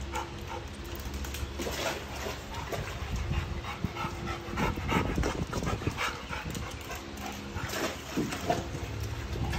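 Labrador retrievers panting and moving about, with a faint steady hum in the background.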